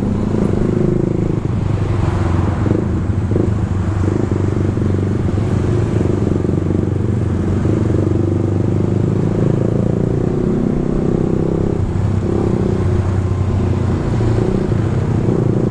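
Suzuki GSX-R150's single-cylinder engine running steadily while riding at a fairly even speed.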